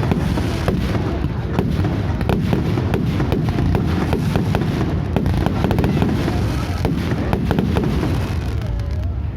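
Fireworks display going off: a dense run of rapid crackles and sharp bangs over a steady low rumble, thinning out near the end.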